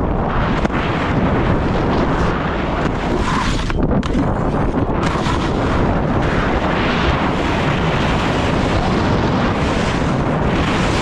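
Wind buffeting the microphone of a camera carried by a skier moving fast downhill, over the steady hiss of skis running on groomed snow, with small surges as the skier turns.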